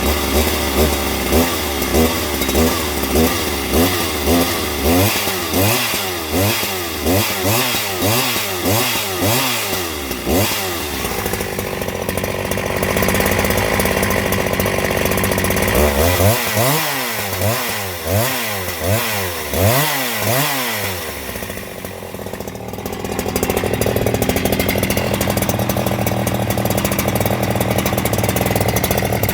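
Husqvarna 372XP two-stroke chainsaw engine, freshly rebuilt, running with the throttle blipped over and over so the revs rise and fall quickly, about one and a half times a second. Between spells of blipping and for the last few seconds it holds steady at high revs.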